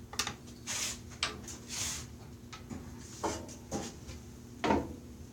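Wooden blocks being handled: a string of short knocks and brief scrapes, the loudest knock near the end, over a faint steady hum.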